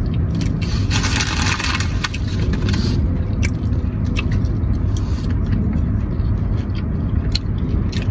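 Steady low rumble of a car heard from inside the cabin, with a brief rustle from about one to three seconds in and scattered light clicks.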